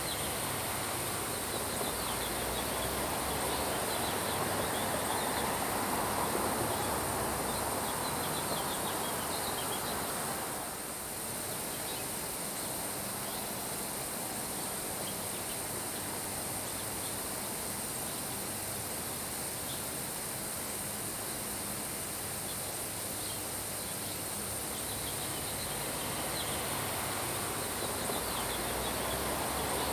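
Steady summer rain falling on grass, an even hiss, with wind that swells for a few seconds near the start and again near the end. Faint high ticks run through it, and the sound dips briefly about a third of the way in.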